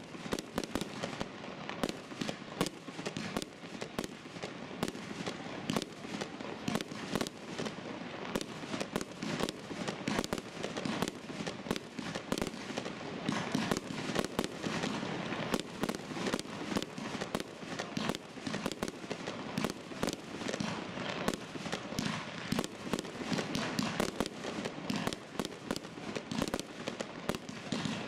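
Aerial fireworks launching and bursting in a continuous, rapid string of bangs, several a second.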